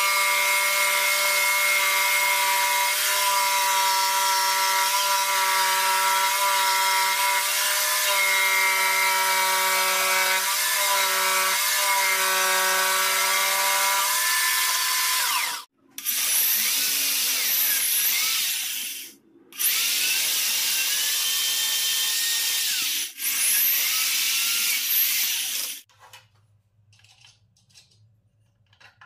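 Electric saw cutting pine: a steady motor whine with the blade's rasp through the wood for about fifteen seconds. After a break it cuts again in three runs with a rougher sound and short stops between them. It then goes quiet, with only faint handling of wood near the end.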